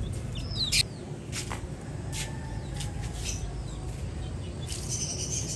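Small birds chirping: a few short, high, falling chirps and brief sharp calls at irregular intervals, with a denser flurry near the end, over a steady low background rumble.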